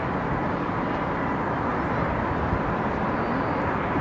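Steady outdoor background noise: an even rush with a faint steady tone.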